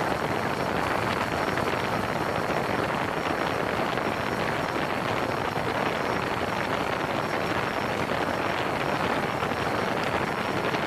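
DJI Phantom 3 4K quadcopter's propellers and brushless motors in flight, heard from just beneath the drone as a steady, even rotor noise with a faint high whine above it.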